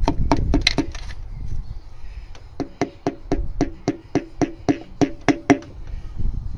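Quick light hammer taps on a piston crown, about four a second, driving the replacement piston through a ring compressor into a cylinder bore of a BMW S63TU V8. The tapping pauses about a second in, resumes, and stops about five and a half seconds in as the piston slides into the bore.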